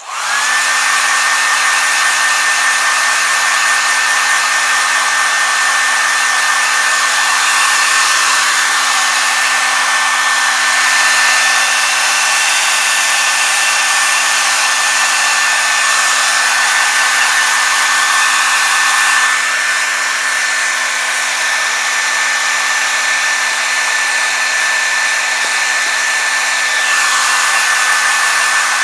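Hair dryer switched on and blowing steadily, a constant whirring hum with airy rush, heating the heat-cure filler compound in a leather repair so that it hardens.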